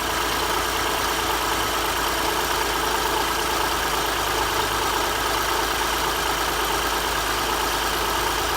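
2006 Honda Ridgeline's 3.5-litre V6 idling steadily.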